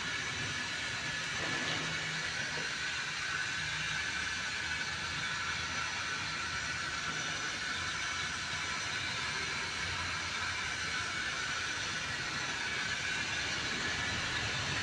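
Steady outdoor background hiss with a faint low rumble underneath, even throughout with no distinct events.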